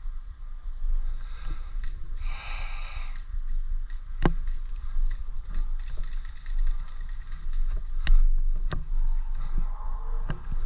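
Steady low rumble of the microphone being jostled as the wearer moves, with a short hiss about two seconds in and a few sharp clicks later on.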